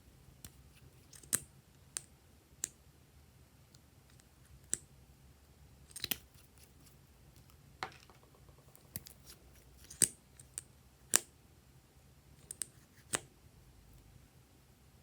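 Glossy slime being worked by hand, giving irregular sharp clicks and snaps, about a dozen.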